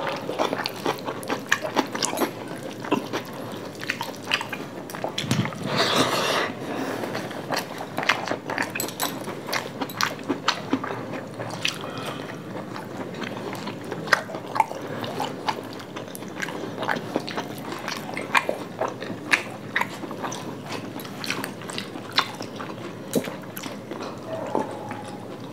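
Two people eating fried rice and chilli chicken with their hands: close-up chewing and mouth sounds, with many sharp irregular clicks. About six seconds in there is a louder noisy patch lasting about a second.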